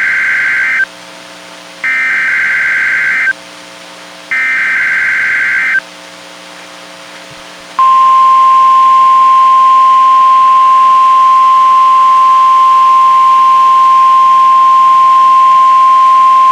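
Emergency Alert System SAME header over NOAA Weather Radio: buzzy digital data bursts, the first ending just after the start, then two more each about a second and a half long with about a second of low hum between them. About eight seconds in, the steady 1050 Hz weather radio warning alarm tone comes on and holds for about nine seconds, opening a Required Weekly Test.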